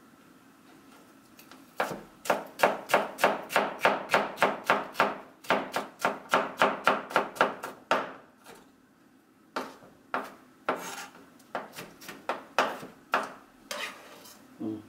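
Chef's knife chopping red bell pepper on a cutting board: a fast, even run of chops, about four a second, starting about two seconds in, then a short pause and slower, irregular chops.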